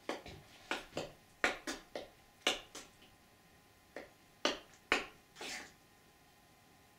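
About a dozen sharp, irregular knocks and clicks over six seconds, with a short scraping sound about five and a half seconds in.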